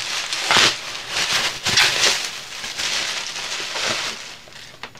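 Plastic bubble wrap crinkling and rustling as hands pull it apart to unwrap a package, in irregular bursts that die away near the end.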